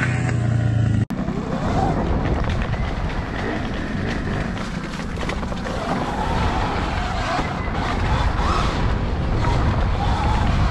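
Dirt bike riding on a track: a rough, steady rumble with a faint engine note rising and falling in pitch, after an abrupt cut about a second in.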